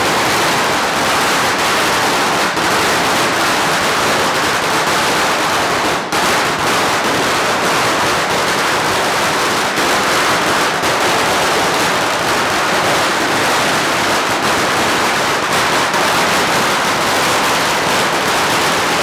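A long string of Chinese firecrackers going off without a break, a dense rapid crackle of bangs, with a brief lull about six seconds in.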